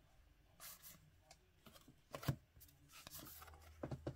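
Trading cards being flipped through by hand: soft swishes of card stock sliding past one another, with a sharper tap a little past halfway.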